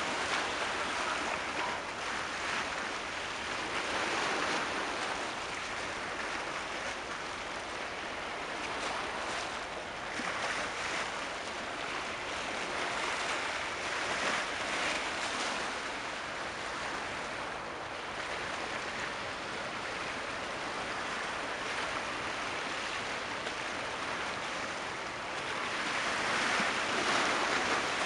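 Waves washing along the shore: an unbroken rush of water that swells and eases a few times, loudest near the end.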